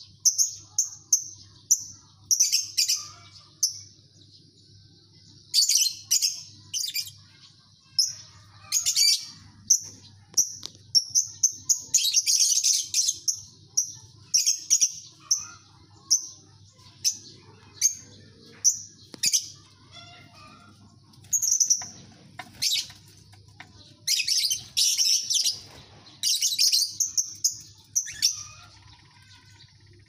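A colony of caged lovebirds chattering: shrill, sharp chirps in runs of quick repeated notes and dense clusters, with a longer unbroken stretch of chatter about twelve seconds in. A faint low hum lies underneath.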